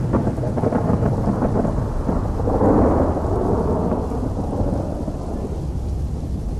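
Floodwater torrent rushing down a steep hillside channel: a dense, steady rush of water that swells for about a second midway.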